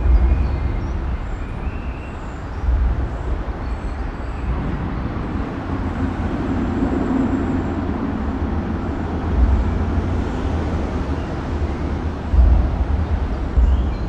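Ring road traffic crossing a bridge, heard from underneath: a steady wash of tyre and engine noise with a deep rumble that swells each time a heavier vehicle passes overhead, about four times.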